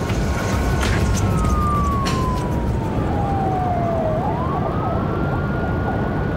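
A police siren wailing, its pitch falling slowly for about four seconds, then sweeping quickly back up and holding high, over a low rumble. A couple of sharp clicks come in the first two seconds.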